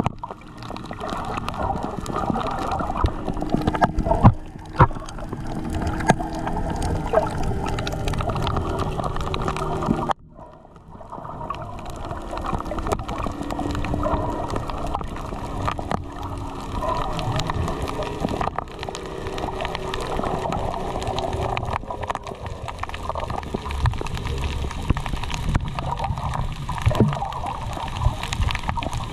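Water heard underwater through an action camera's housing: muffled gurgling and rushing with scattered clicks and pops. The sound drops away sharply about ten seconds in, then builds back up.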